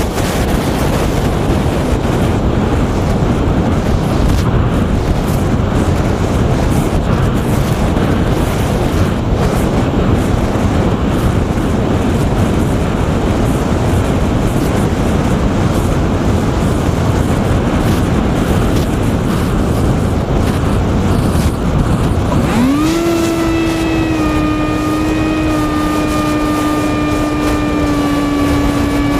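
Wind rushing over the flying wing's onboard microphone while it glides. About 22 seconds in, its F80 2500kv brushless motor and 6-inch propeller spin up quickly to a steady tone.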